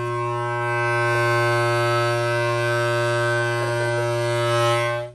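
Homemade PVC-pipe and balloon air horn blown in one long, steady, buzzy low drone. It stops abruptly near the end.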